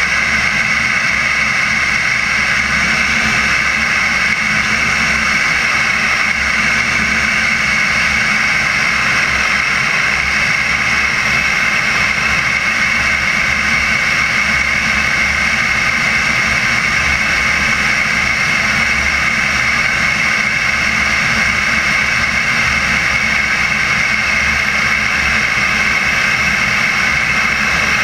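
CARF Viper RC model jet's turbine engine running at a steady throttle in flight, heard right at the airframe's belly near the exhaust, mixed with rushing airflow.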